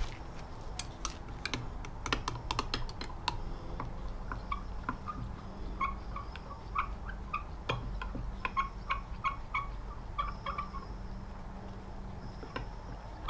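A utensil stirring liquid soft plastic in a glass measuring cup, giving a quick run of small clicks and clinks against the glass, sharpest in the first few seconds and lighter through the middle. A steady low hum runs underneath.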